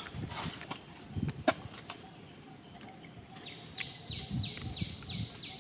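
A bird calling in a run of short, quickly falling notes, about three a second, starting a little past the middle. A sharp click comes about a second and a half in, with soft low thuds scattered throughout.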